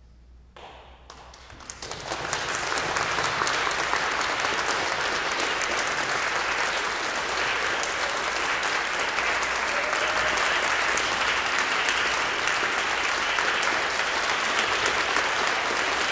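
Audience applauding. It starts softly about half a second in, builds over the next second or two, then carries on steadily.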